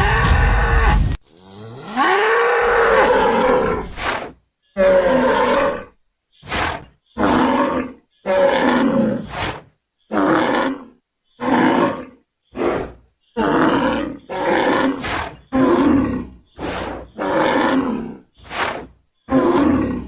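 African buffalo calling in a series of deep, moo-like bellows and grunts. A long call a couple of seconds in rises and then falls in pitch, followed by a run of shorter calls at about one a second, each separated by a brief silence.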